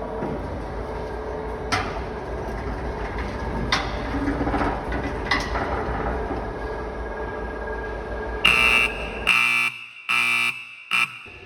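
AMF Glen 360-quart industrial mixer running steadily under power, with a low hum and a few sharp clicks. About eight seconds in, four loud buzzer beeps sound and the mixer's running noise stops partway through them.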